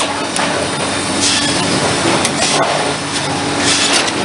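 Cedar shake mill machinery running: a steady hum under a continuous rough sawing and rubbing noise, with short bursts of hiss a few times.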